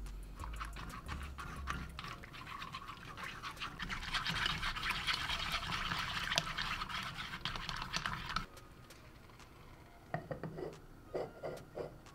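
Wooden chopsticks whisking egg into hot stock in an earthenware pot, a rapid clicking and scraping against the pot with the liquid sloshing. It turns faster and denser about four seconds in, where the footage is sped up, and stops suddenly a little after eight seconds. A few light clinks follow near the end as the ceramic lid is set on the pot.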